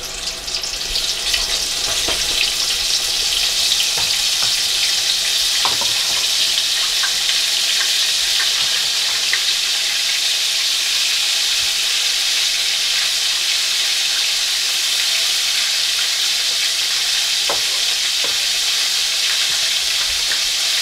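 Battered chicken deep-frying in hot oil in a Dutch pot: a dense, steady sizzle that swells over the first couple of seconds after the piece drops in, then holds. A few light clicks sound over it.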